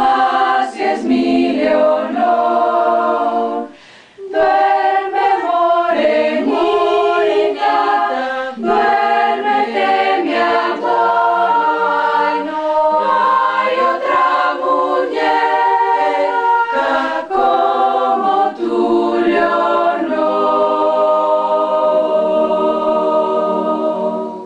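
A small choir singing a cappella in several-part harmony, with a short break about four seconds in. The song ends on a long held chord that cuts off sharply at the end.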